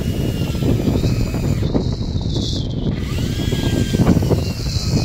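Big-game fishing reel whining under the load of a large hooked fish, a thin high tone that glides up and down, over a steady rumble of wind and boat engine.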